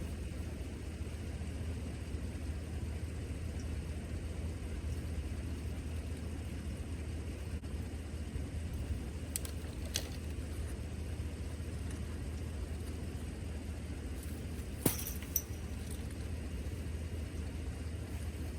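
Dodge vehicle driving up a snow-covered trail: a steady low engine and drive rumble, with a few sharp clicks or rattles about nine to ten seconds in and again around fifteen seconds.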